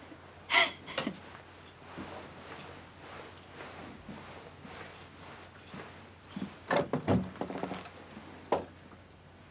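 Light rustles and knocks of people moving about, then a cluster of clicks and rattles from a wooden door's handle and latch being worked about seven seconds in, with one more sharp knock soon after.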